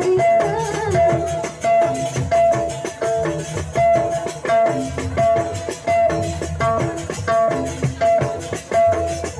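Rudat band music from Lombok: a short melodic figure repeating on a steady beat over drums and percussion, with a sung phrase only in the first second.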